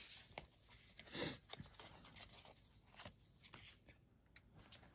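Near silence: room tone with a few faint soft taps and rustles.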